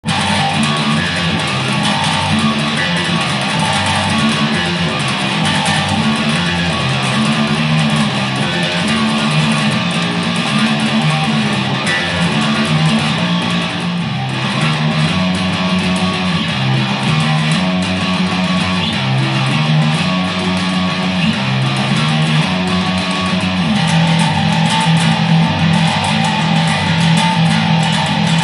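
Electric bass played through distortion, a metal riff of moving low notes with a dense, gritty tone. It starts abruptly and runs on without a break.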